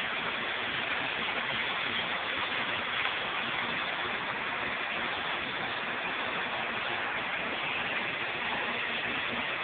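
Stick-welding arc burning a 7018 electrode on a vertical tee joint: a steady, even hiss.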